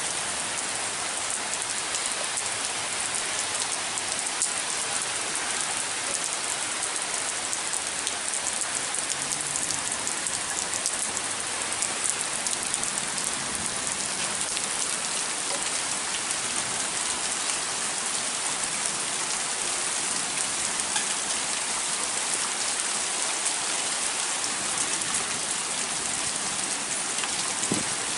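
Steady heavy rain, with many small drops ticking on a nearby surface.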